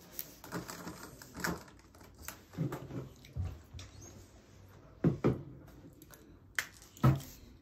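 Irregular light taps and knocks of markers and paper handled on a tabletop, with a pair of sharper knocks about five seconds in and another near the end.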